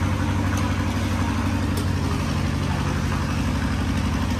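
A combustion engine idling steadily: an even, low hum.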